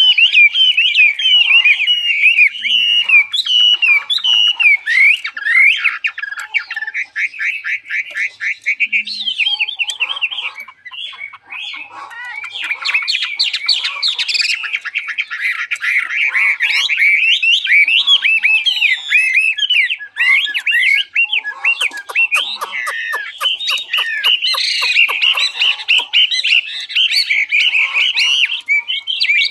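Chinese hwamei (Garrulax canorus) singing a long, varied song of rapid whistled notes and trills, pausing briefly about eleven seconds in.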